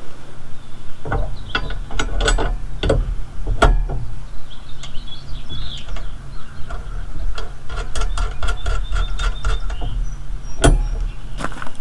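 Metal parts and hand tools clinking and knocking as handle brackets are bolted onto a wheel hoe, with a quick run of evenly spaced clicks about two-thirds of the way through, over a steady low hum.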